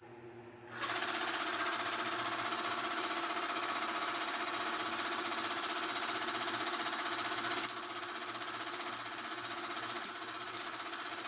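A small electric air pump switches on about a second in and runs with a steady, fast buzz. It is feeding air through the fuel line of a homemade LEGO two-stroke engine. Later in the clip the pump runs slightly quieter, and a few sharp clicks sound.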